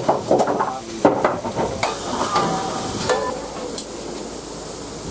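LMS Coronation Class steam locomotive standing with steam hissing, broken by several sharp metallic clanks and knocks from the footplate.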